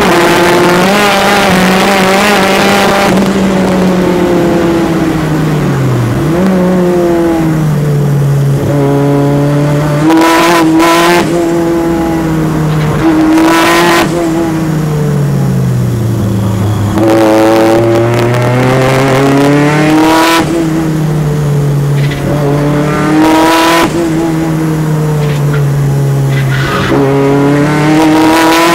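Turbocharged Peugeot 205 engine heard from inside the car at speed on a race circuit, revving up through the gears and dropping back again and again as it slows for corners. Several times, just as the revs stop climbing, there is a short loud rush of noise.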